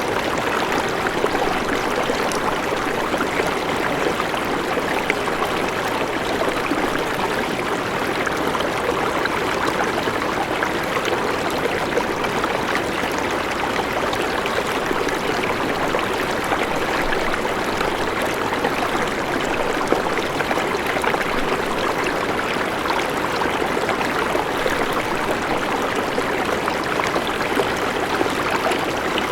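River water flowing steadily, an unbroken rushing of running water with no change in level.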